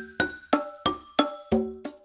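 Background music: a light tune of evenly spaced struck notes, about three a second, each ringing down, with the bass line dropping out.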